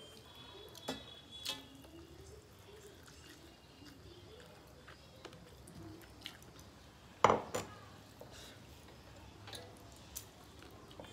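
Eating by hand from metal plates: fingers mixing rice and curry, with a few light clinks of dishes. A little past halfway comes one sharp, much louder clink as a small ceramic bowl knocks against a metal plate.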